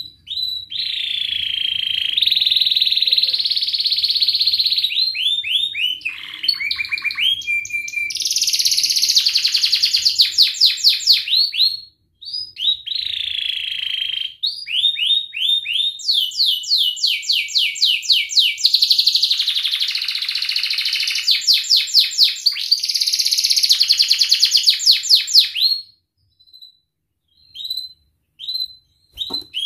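Domestic canary singing long song phrases of fast trills and rolls, with a short pause about twelve seconds in, then a few short separate chirps near the end.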